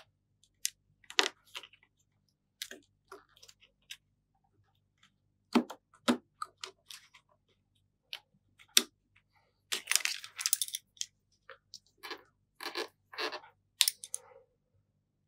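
Small handling sounds from fitting a replacement battery into an opened iPhone 7: scattered sharp clicks and taps, with a denser crackle of rustling about ten seconds in.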